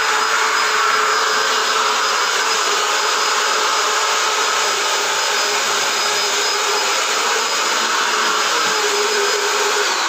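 Corded handheld stick vacuum cleaner running steadily while being pushed over a tiled floor: a constant motor whine over the rush of suction air.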